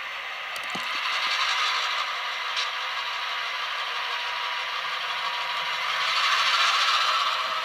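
Tsunami sound decoder's diesel switcher engine sound from an HO-scale Athearn SW1500 model, played through the locomotive's tiny speaker: a thin, rattling engine sound with no bass. It swells louder about a second in and again near the end.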